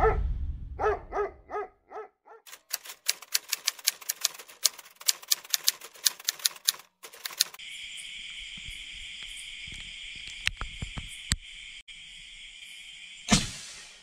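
The last echoing notes of an intro jingle fade out, followed by a rapid typewriter-like clicking sound effect for about five seconds. After that, a steady high chirring of night insects runs on, with a few scattered clicks and a single thump near the end.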